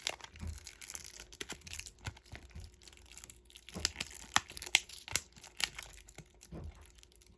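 Candy packaging being handled and torn open: irregular crinkling and tearing of wrappers, with sharp crackles scattered throughout.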